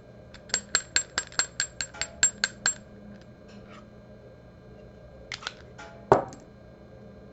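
Fly-tying hair stacker being tapped on the bench to even the tips of a clump of elk hair: about eleven quick, slightly ringing taps at about five a second, then a few lighter clicks and one louder knock near the end.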